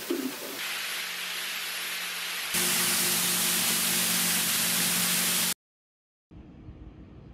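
Water falling and spraying from overhead nozzles onto a process tank: a steady hiss over a low machine hum, louder from about two and a half seconds in. It breaks off into silence for under a second, then a much fainter steady factory hum follows.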